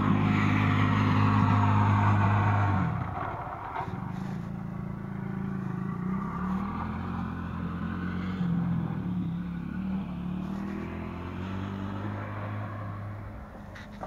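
A motor vehicle's engine running, a pitched hum that is loudest for about the first three seconds and then drifts up and down in pitch before fading near the end.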